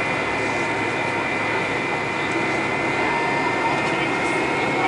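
Cabin noise of a McDonnell Douglas MD-88 taxiing on its rear-mounted Pratt & Whitney JT8D turbofans: a steady rushing drone with a high engine whine over it.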